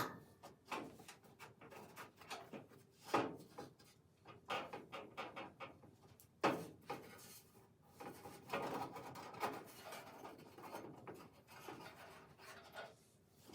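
Sheet-metal inner rocker panel being handled and fitted into place: scattered light knocks, taps and scraping of metal on metal, with several sharper knocks along the way.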